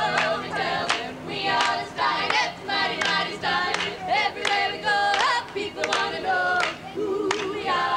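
A group of women singing a cappella in close harmony, with hand claps keeping a regular beat.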